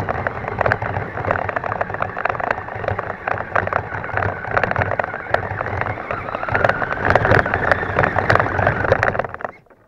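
Himoto 1:10 RC truck driving through long grass, picked up by a camera mounted on the truck: a dense rattling crackle of grass, leaves and twigs striking the body and chassis, over the drivetrain's running noise. A rising whine briefly comes through about seven seconds in, and the sound cuts off abruptly near the end.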